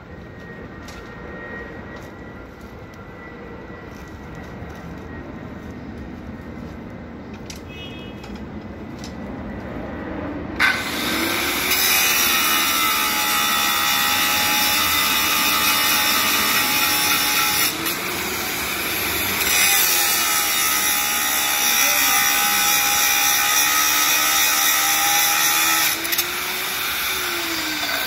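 Electric angle grinder with a cut-off disc, first running with a steady whine, then from about ten seconds in cutting through steel rebar with a loud, harsh grinding hiss. The cut eases briefly around the middle, and the motor pitch wavers as it is loaded.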